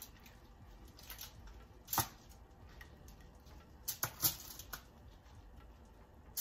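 Light clicks and taps of shell-on lobster tails being lifted off a ceramic plate and laid into a foil pan: one sharp tap about two seconds in, then three quick ones about four seconds in.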